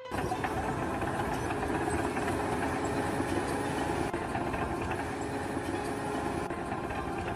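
Machinery running steadily, a dense mechanical rattle and hum that starts abruptly.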